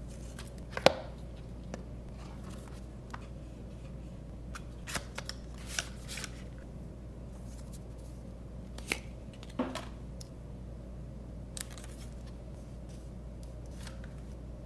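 Unboxing handling noise from a plastic-free cardboard phone box and its paper inserts: short rustles, taps and clicks come at uneven intervals, the sharpest about a second in and again near ten seconds in. A low steady hum runs underneath.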